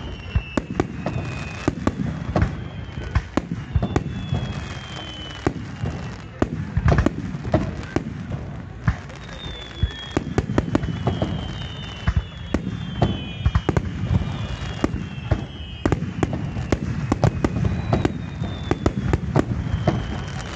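Aerial firework shells bursting in quick, irregular succession over a steady low rumble, with thin falling whistling tones between the bangs. The bangs are loudest about seven seconds in.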